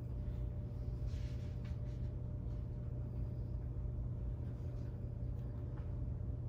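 Room tone: a steady low hum with a few faint, soft rustles.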